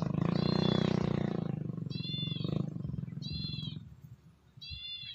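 A wild animal's short high call, repeated about every one and a half seconds, over a low rough pulsing drone that fades out about four seconds in.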